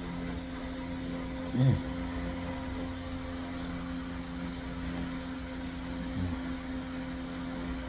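Steady low hum from a room appliance or fan, with a man's two brief muffled voice sounds, about one and a half seconds in and near the end, while he chews a mouthful of hot bagel dog.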